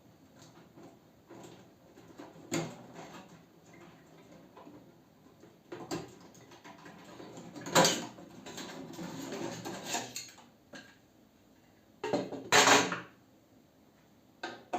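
Scattered clicks, knocks and clatter of tools and metal parts being handled while a microwave oven is taken apart, with a loud clank about halfway through followed by a couple of seconds of scraping, and another loud clank near the end.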